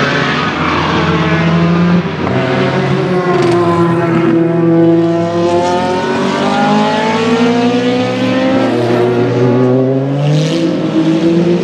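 Group C sports-prototype race car engine running hard, its pitch sweeping down and back up as the revs change, with a short break about two seconds in.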